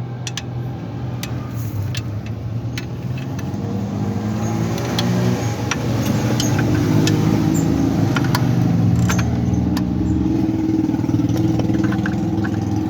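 A vehicle engine running steadily, growing louder about five seconds in and holding there, with scattered sharp metallic clicks.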